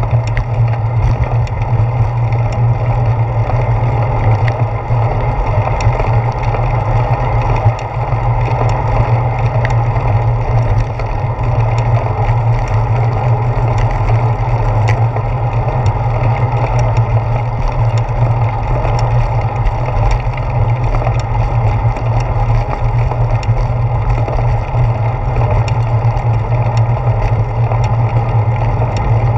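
Steady low rumble of wind and road vibration picked up by a handlebar-mounted GoPro as a bicycle rolls along a paved path, with small ticks and rattles throughout.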